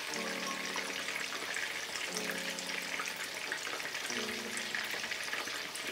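Salmon frying in a pan over low heat: a steady sizzling hiss with fine crackles.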